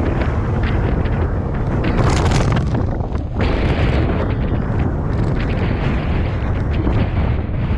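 Wind buffeting the microphone of a bicycle-mounted camera while riding, with the rumble of rolling over the street and small rattles and knocks. About two seconds in, a louder rushing hiss swells briefly.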